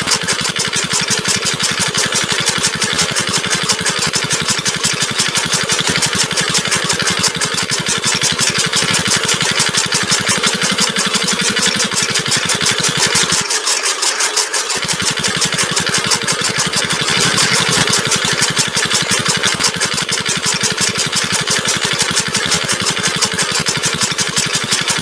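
Small electric motor of a homemade toy oil-press machine running steadily, driving its rollers with a fast, even buzzing rattle.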